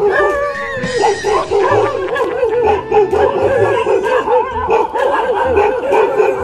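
A dog giving alarm barks at a toy tiger: one longer drawn-out call, then a fast run of high, yelping barks, several a second.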